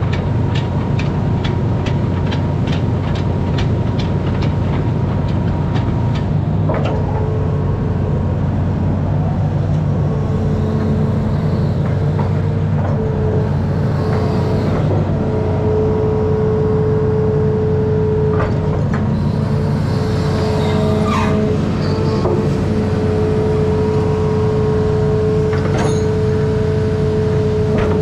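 Amphibious excavator's diesel engine running steadily at close range. Regular clicks sound through the first six seconds, and a steady whine comes in about seven seconds in and holds.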